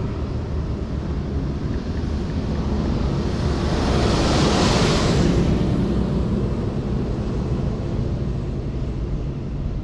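Highway traffic at the roadside with wind on the microphone; a vehicle passes close, its rush swelling to a peak about four to five seconds in and then fading.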